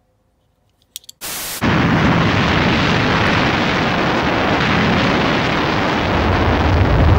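A brief burst of TV static hiss about a second in, then the loud, steady roar of a Panavia Tornado GR1's jet engines as the aircraft rolls along a runway.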